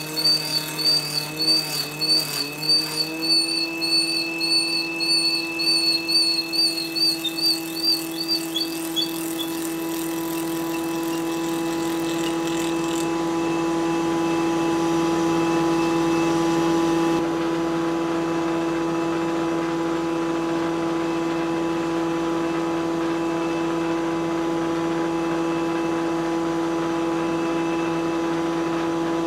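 Table saw with a 9-inch carbide blade cutting a round tenon on a log turned in a TC-22 tenon cutter, the cut swelling and fading about twice a second with a warbling high whistle. After about nine seconds the cutting stops and the saw runs on unloaded with a steady whine.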